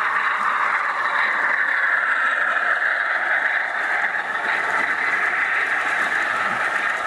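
0 gauge model diesel train with maroon coaches running past on garden railway track: a steady rolling noise of wheels on rail together with the locomotive's motor.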